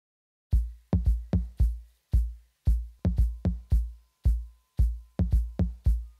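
Electronic background music with a deep kick-drum beat, starting about half a second in.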